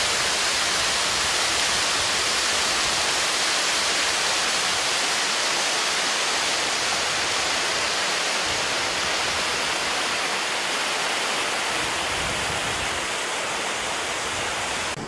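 Polluted, foaming creek water rushing over rocks: a steady hiss of white water that eases slightly near the end.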